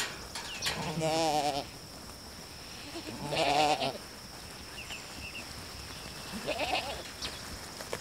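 Sheep bleating: two long, wavering bleats about a second and three seconds in, and a shorter one near the end.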